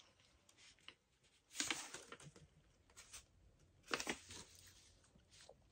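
Faint rustling of a paper cross-stitch pattern sheet being handled, in a few brief bursts about one and a half, three and four seconds in.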